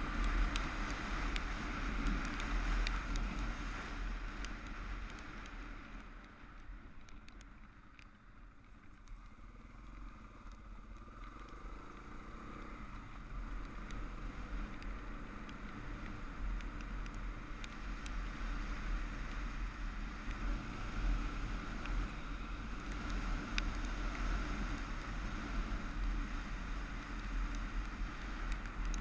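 Motorcycle riding along with its engine running and wind rushing over the microphone. It gets quieter for a few seconds about a quarter of the way through, as if the bike slows, then builds up again.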